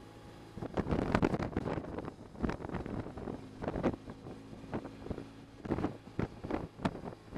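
Wind buffeting the camera microphone in irregular gusts while riding a motorcycle, with the motorcycle's engine running steadily underneath.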